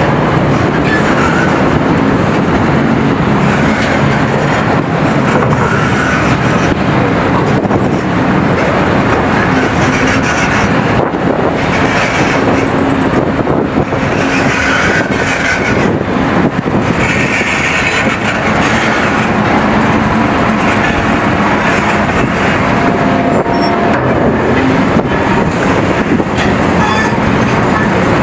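Large hydraulic mining excavator working: steady diesel engine and hydraulic noise as it digs rock and swings to load a dump truck.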